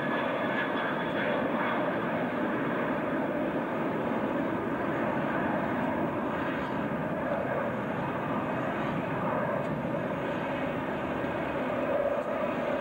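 Jet engines of a twin-engined airliner climbing away after takeoff, heard from the ground as a steady rushing jet noise that holds throughout.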